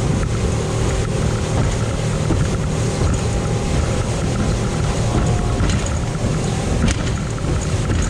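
Small aluminium tinnie running at speed under outboard power: a steady motor drone mixed with water rushing and spraying off the hull, and wind buffeting the microphone. One sharper knock about seven seconds in.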